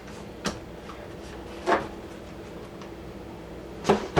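Pickle jars being handled and set down: a few light knocks and clicks, with a louder cluster of knocks near the end.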